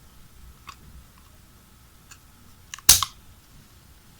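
A cutting tool snipping through the MagSafe charger cable's rubber strain-relief insulation: a few faint clicks, then one loud, sharp snip about three seconds in.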